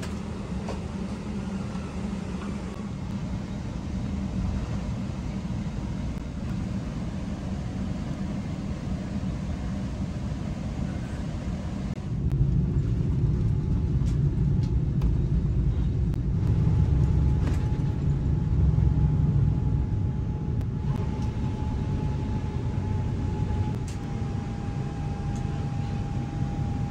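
Cabin noise of a Boeing 777-300ER's GE90 engines at take-off: a steady hum, then about twelve seconds in a much louder deep rumble as the jet runs down the runway at take-off thrust and climbs away. A thin steady whine comes in partway through the louder part and holds.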